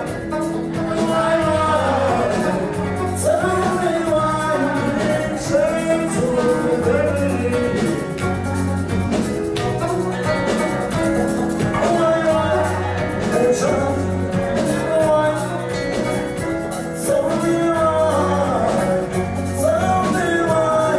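A live band playing an upbeat song: singers over a drum kit, electric guitar and a repeating bass line.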